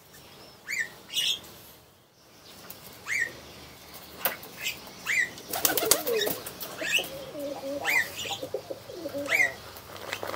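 Pigeons: a short rising chirp repeated about once a second, with low wavering cooing through the middle and a brief flurry of wing flaps partway through.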